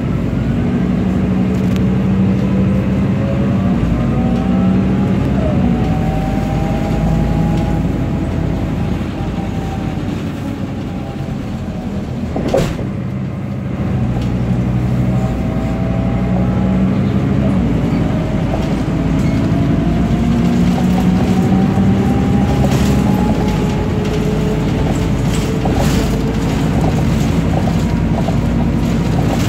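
Interior sound of a MAN NG312 articulated bus, with its MAN D2825 diesel drone and the whine of its ZF 5HP590 automatic gearbox. The whine rises as the bus pulls away and drops back at each gear change. The sound eases off about a third of the way in, a single sharp knock comes near the middle, and then it pulls away again with another rising whine.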